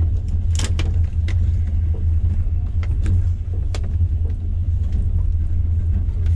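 Steady low rumble of a moving passenger train heard from inside the carriage, with a few sharp clicks and knocks in the first four seconds.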